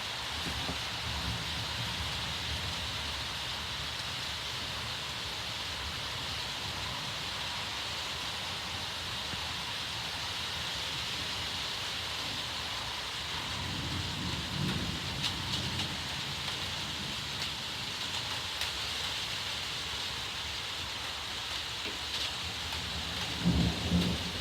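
Thunder from an approaching thunderstorm rumbling several times, the loudest rumble near the end, over a steady hiss.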